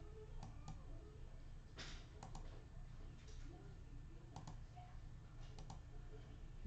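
Faint scattered clicks and taps, several in quick pairs, with one short rustle about two seconds in, over a low steady hum.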